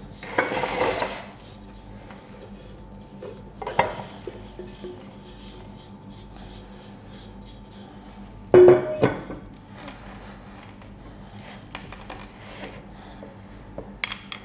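Stainless steel mixing bowl and metal baking tin clattering against each other and the wooden table as crumbly shortbread dough is tipped out and pressed into the tin by hand. There are a few separate clatters, the loudest a sharp knock with a short ring about eight and a half seconds in, and softer handling sounds between them over a faint steady hum.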